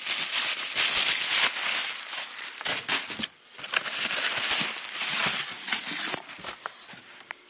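Plastic foam-in-bag packing cushions (Instapak Quick) and plastic wrap crinkling and rustling as a hand pushes and pulls them aside in a cardboard box. The dense, crackly rustle eases off near the end.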